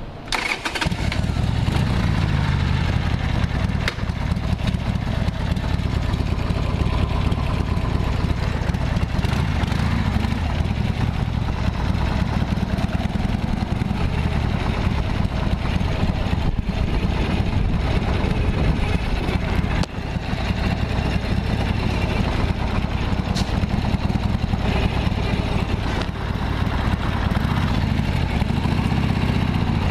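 Harley-Davidson XLH1200 Sportster's 1200 cc air-cooled V-twin comes in suddenly near the start and then runs steadily at idle. This is the engine whose abnormal noise the owner is recording.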